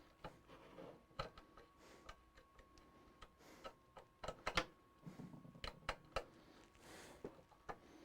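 Irregular light clicks and taps of computer hardware being handled inside a desktop PC case, the loudest cluster a little past the middle, over a faint steady high whine.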